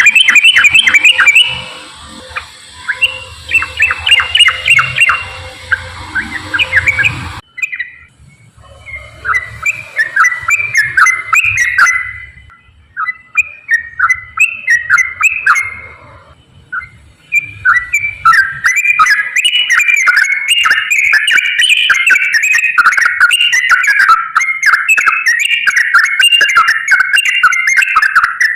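Yellow-vented bulbul (trucukan) singing a rapid, rolling chatter of bubbling phrases. There is a break about 7 s in, short pauses, then a long unbroken run of song from about 17 s to the end.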